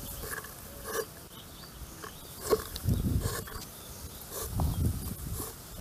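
Hands working a bottle gourd fish trap, pulling its bamboo sticks out: short scrapes and clicks of the sticks, with low rustling handling noise in bursts.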